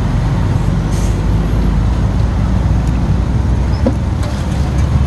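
Steady low rumble of road traffic, with a few faint clicks over it.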